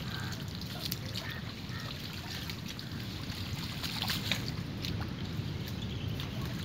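Water splashing and trickling as a fishing net is hauled in by hand at the water's edge, with a few sharper splashes about a second in and around four to five seconds in, over a low steady rumble.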